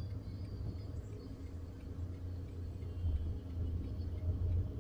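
Low, steady rumble of a car's engine idling, heard from inside the cabin while the car stands still.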